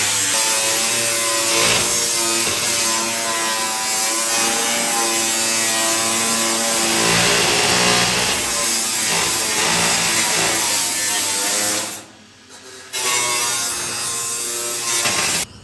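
A power tool running under load, its motor pitch wavering with steady hiss, as when cutting wood. It stops for about a second near twelve seconds in, starts again, then cuts off at the end.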